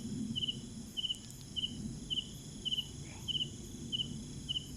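A cricket chirping steadily, short three-pulse chirps at about two a second, over a low background rumble.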